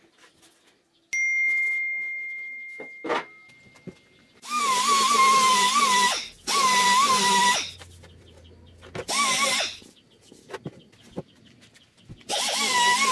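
A power tool run in four short bursts, its whine wavering in pitch as it works against the part. About a second in there is a single high ringing ding that fades away.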